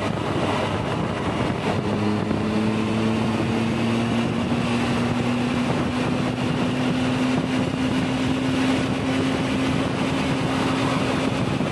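Triumph Tiger 1200 motorcycle at highway speed: heavy wind rush on the microphone over the steady hum of its three-cylinder engine and tyre noise. About two seconds in a low hum comes up and slowly rises in pitch.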